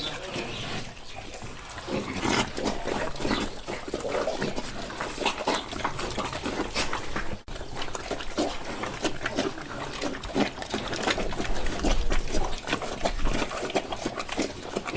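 Several pigs eating, with dense, overlapping chewing and snuffling noises made up of many short smacks and clicks. The sound drops out very briefly about seven seconds in.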